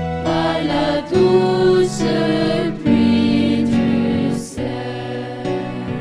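A women's choir singing a French hymn in sustained notes, with organ accompaniment.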